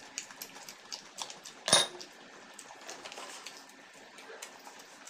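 Close-up eating sounds of biryani eaten by hand: chewing and lip-smacking with small clicks of fingers and rice against plates. About a second and a half in comes a single sharp clink of tableware, the loudest sound.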